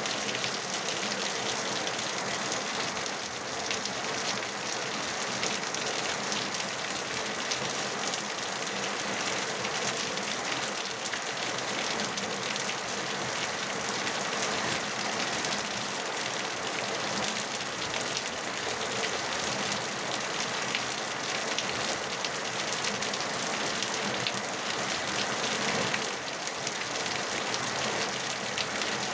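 Steady rainfall: a dense, even hiss of drops falling on a surface.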